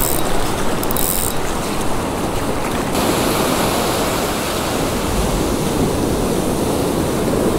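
Surf washing up the beach, with a spinning reel (a Daiwa BG3000) being cranked and ticking over it.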